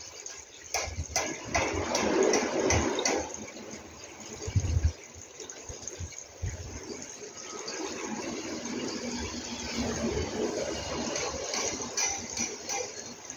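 Wind buffeting the microphone: an irregular rushing noise with uneven low rumbles.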